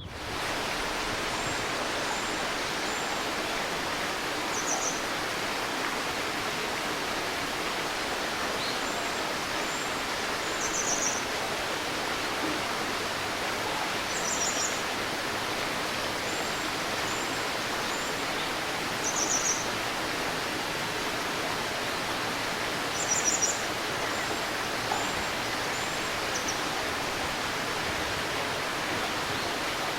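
Shallow river babbling steadily, with a small bird calling every few seconds over it: groups of short high chirps and brief rapid trills.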